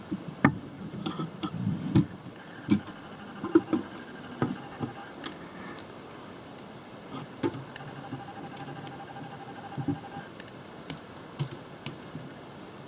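Plastic Lego Technic pieces clicking and knocking as they are handled and pressed together: irregular sharp clicks, busiest in the first five seconds, then sparser.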